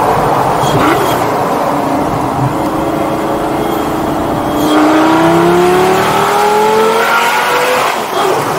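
Straight-piped 5.0 V10 of a 2004 Lamborghini Gallardo accelerating. Its note climbs steadily for about three seconds from midway, then drops at a gearshift near the end.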